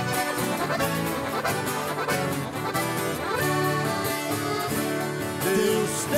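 Accordion and strummed acoustic guitar playing an instrumental passage of a Brazilian sertanejo country song between sung verses.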